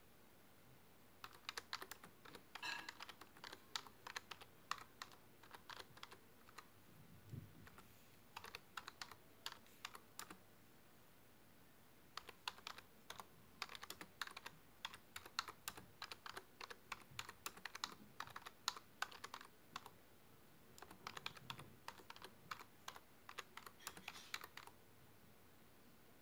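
Typing on a computer keyboard: quick runs of key clicks, broken by pauses of a second or two.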